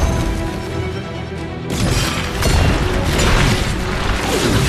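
Action-movie soundtrack: film score music under fight sound effects, with booms and impacts and a sharp hit after a brief lull about one and a half seconds in.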